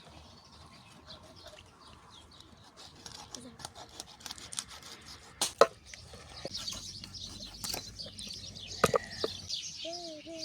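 Small birds chirping outdoors, the calls growing busier past the middle. Scattered light clicks run throughout, with two sharp knocks, one just past halfway and one near the end.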